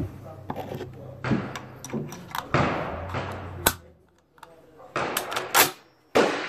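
Rifle gunshots on a firing range: a series of sharp reports, several with a short echoing tail. Three of them come close together about five seconds in.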